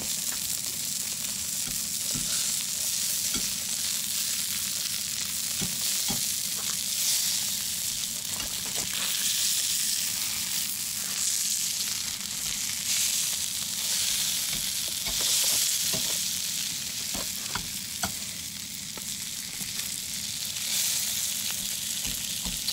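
Cevapcici (minced-meat sausages) sizzling on the hot flat griddle plate of a portable Ogrill gas grill. It is a steady frying hiss with scattered sharp pops.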